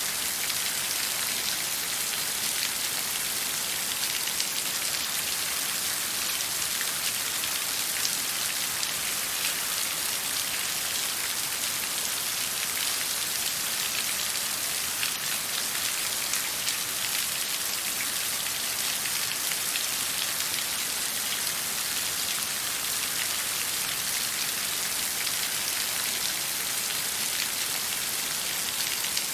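Falling water: a dense, even hiss of many small drops, holding a steady level.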